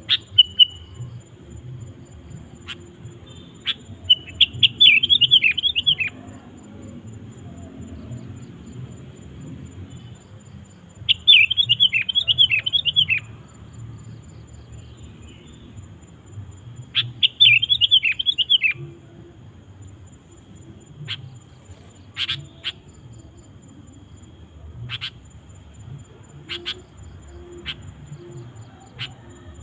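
Sooty-headed bulbul (kutilang) singing: three phrases of quick warbled notes, each about two seconds long and roughly six seconds apart. Short single call notes are scattered through the last third, over a steady low background hum.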